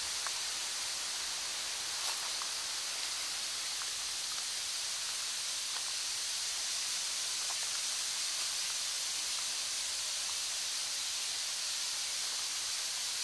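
Steady hiss of running water from a small cascade pouring over a stone wall, with a few faint short ticks scattered over it.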